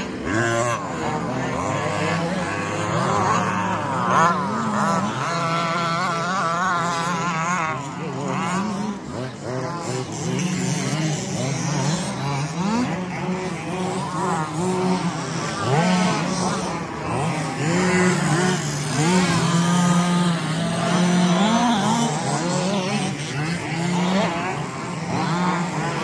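Several radio-controlled 2WD Baja buggies racing together, their small engines revving up and down over and over as they accelerate and brake around the track.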